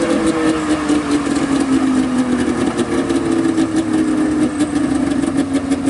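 Suzuki Jimny engine running steadily at low revs as the 4x4 crawls down a dirt slope, its note easing slightly lower.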